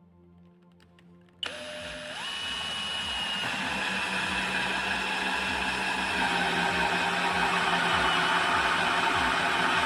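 An electric power tool switched on about a second and a half in: its motor spins up, rising in pitch over the first second, then runs with a steady whir that grows slightly louder.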